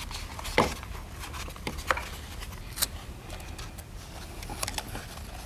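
Scattered light clicks, taps and rustles of small objects being handled on a tabletop, over a low hum.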